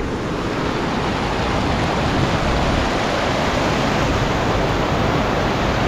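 Mountain river rushing, a steady even sound of flowing water.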